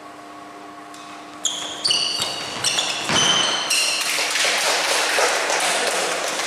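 Badminton doubles play: sharp racket hits on the shuttlecock and short high-pitched shoe squeaks on the court, starting about a second and a half in, then a dense din of noise with many quick claps.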